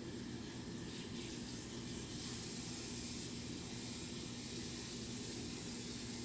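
Steady low hiss with a faint electrical hum underneath: room tone, with no distinct event.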